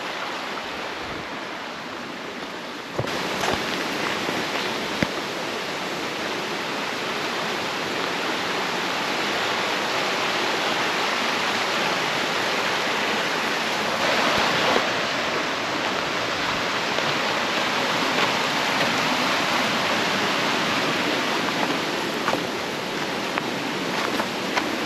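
Waterfall rushing and splashing in a steady roar of falling water, which gets suddenly louder about three seconds in.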